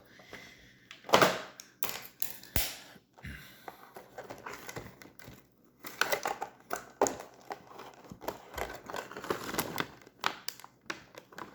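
Plastic packaging crinkling and rustling as puzzle cubes are unpacked from their box, with irregular clicks and knocks from handling. The loudest knock comes about a second in.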